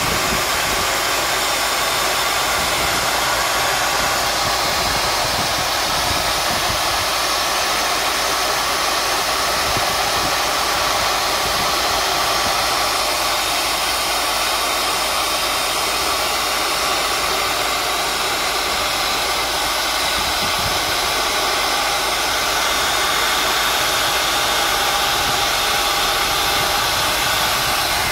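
Drill press running steadily, its bit boring holes into a heavy-truck brake lining block.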